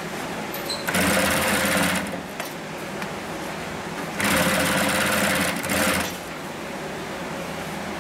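Hightex HR-4NNet industrial single-needle overseaming sewing machine stitching the edge of netting in two short runs, one of about a second starting about a second in and one of nearly two seconds starting about four seconds in. A steady lower hum continues between the runs.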